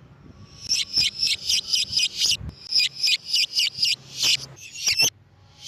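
Lovebird chattering in a fast run of shrill, high-pitched chirps, about five a second: the long chatter that lovebird keepers call 'ngekek'. The run breaks briefly around the middle and again near the end.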